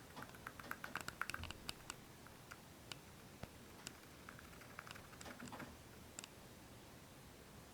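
Degus grinding their teeth (bruxing): faint, rapid clicking in quick runs, thickest in the first two seconds and again around five seconds in. The sign of relaxed, contented degus.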